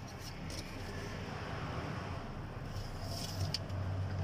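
Faint clicks and light taps from gloved hands handling parts around the oil filler of a Toyota Hiace diesel engine bay, over a steady low hum, with a small cluster of clicks about three seconds in.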